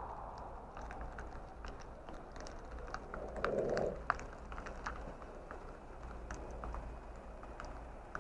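Car on the move, heard as a steady low road hum with many small irregular clicks and ticks from rattles, and a short muffled bump about three and a half seconds in.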